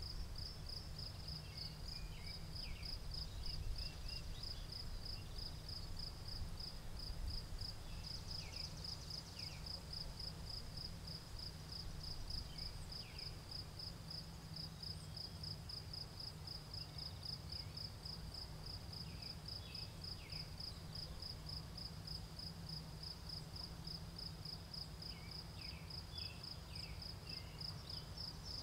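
Crickets chirping in a steady, even pulsed trill, with short bird chirps now and then over a low steady rumble.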